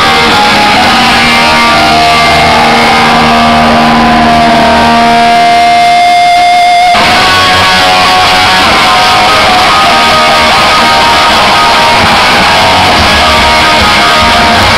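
Punk rock band playing loud and live: electric guitars ring with one long held high note, then about halfway through the full band comes in at once with drums and guitars.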